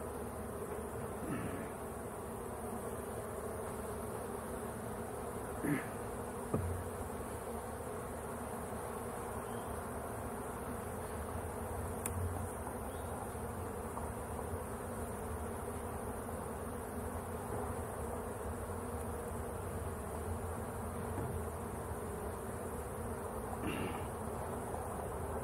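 Honeybees buzzing in a steady hum around an opened hive as its frames are worked. Two sharp knocks come about six seconds in.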